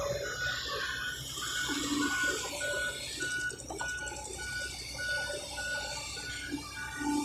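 Construction machine's warning alarm beeping evenly about twice a second over the low rumble of heavy diesel machinery working.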